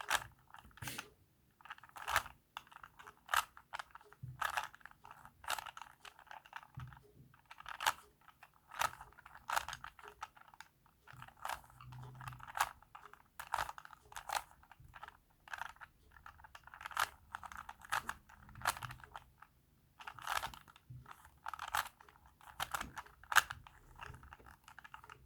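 Rubik's Cube layers being twisted by hand while its corners are solved: a run of plastic clicking and clacking, each turn a short clattering burst, about one a second.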